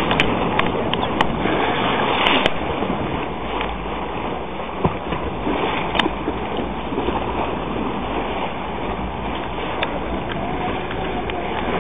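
A boat's motor running steadily with water noise around the hull, with a few sharp clicks in the first few seconds and one more about six seconds in.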